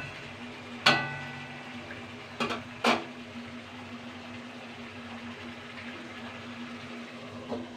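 Metal kitchen utensils being handled: one clink with a short ringing tone about a second in, then two light knocks a half second apart, over a steady low hum.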